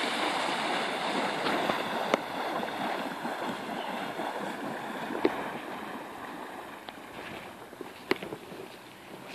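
Splashing of a person wading fast through shallow lake water. It fades steadily as he wades deeper and farther off, with a few short sharp clicks.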